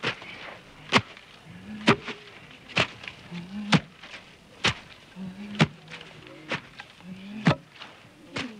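Onions being pounded into a pulp by hand: sharp knocks about once a second, with softer knocks between them and a short low hum just before each main blow.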